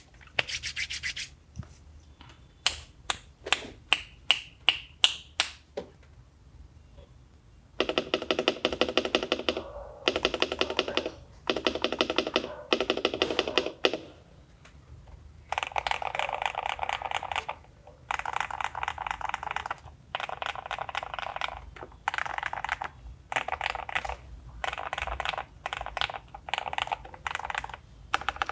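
Custom mechanical keyboard with Cherry MX Hyperglide Black linear switches being typed on, creamy and poppy: a handful of single keystrokes, then fast typing in bursts separated by short pauses.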